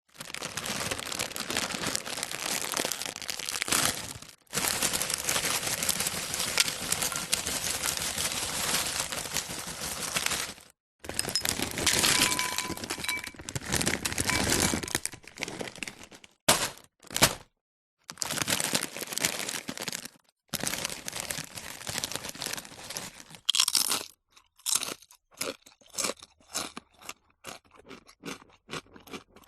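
Potato chips crunching and crackling in several long, dense stretches that stop abruptly between takes. Near the end the crunches come one at a time, about two a second, like chewing.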